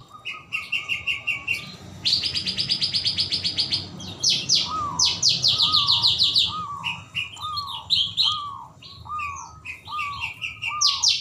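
Birds chirping in rapid, high-pitched trilled series. From about four seconds in, a lower note repeats roughly twice a second, fitting the cooing of a zebra dove (perkutut).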